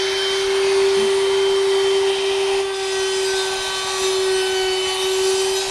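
Table-mounted router with a chamfer bit running at full speed: a steady high whine. The edge of a plywood push stick is fed against the bit to chamfer it.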